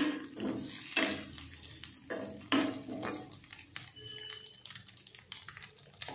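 A metal spoon scraping and knocking against a metal kadai while stirring egg fry, about two strokes a second, easing off to fainter scrapes after about three seconds.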